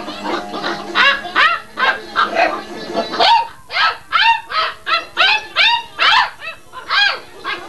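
Six-week-old Great Dane puppy barking in high, short yaps, a few at first and then a quick string of about ten, roughly two a second, through the second half.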